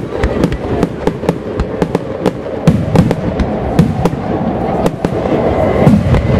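Fireworks display: aerial shells launching and bursting, a rapid, irregular string of sharp bangs and crackles.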